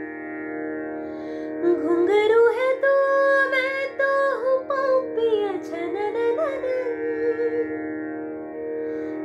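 A young woman's voice singing a slow, wordless, ornamented opening phrase in Indian classical style, the pitch gliding and bending, over a steady unbroken drone. The voice comes in about two seconds in and fades out near the end, leaving the drone alone.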